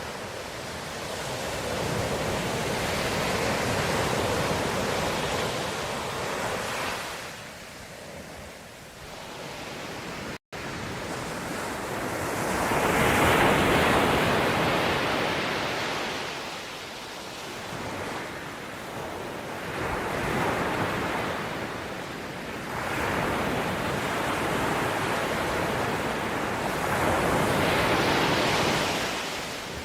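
Ocean waves breaking and washing on a shore, swelling and ebbing every few seconds, with a momentary drop to silence about ten seconds in.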